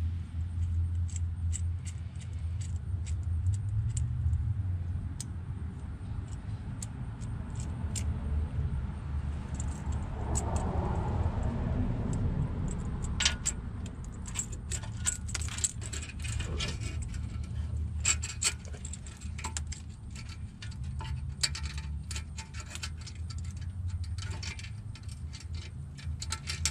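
Small metallic clinks and jingles of a steel hose clamp being handled and fitted around a car's exhaust tailpipe. They are sparse at first and come thick and fast from about halfway, over a steady low rumble.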